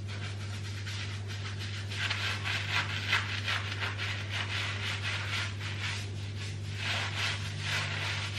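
Fingertips scrubbing castile-soap lather into short, wet natural hair and scalp: a continuous crackling, rubbing noise that grows denser from about two seconds in, over a steady low hum.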